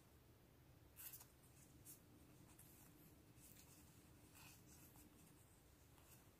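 Faint rustling and light flicks of die-cut paper stickers being shuffled and sorted by hand, with a louder rustle about a second in.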